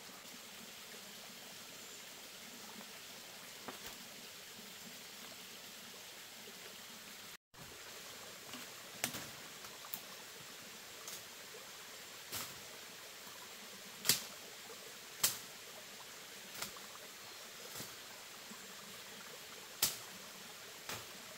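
Footsteps pushing through forest undergrowth: dry leaves and twigs crackling and snapping underfoot, irregular sharp snaps about once a second from around a third of the way in, over a faint steady hiss.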